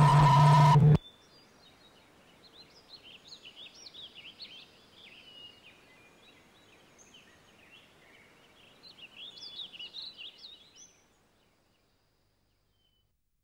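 A loud burst of noise with a steady tone and a low hum cuts off sharply about a second in. Then comes faint chirping and twittering of many small birds, busiest in two spells, until it stops abruptly near the end.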